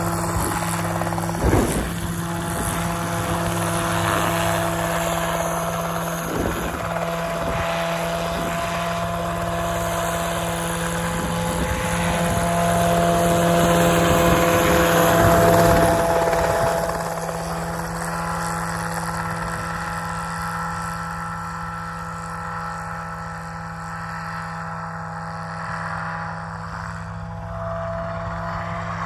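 Homebuilt single-seat helicopter's engine and rotor running steadily as it hovers and flies low. It grows louder around the middle, then drops back and stays quieter as the helicopter is farther off.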